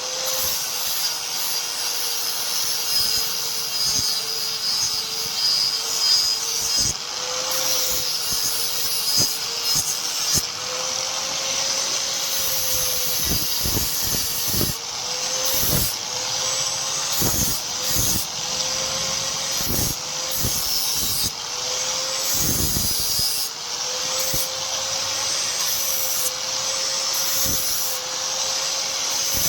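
An electric grinder running at a steady speed with a constant whine, while steel is pressed against it in scraping, rubbing contacts that come and go.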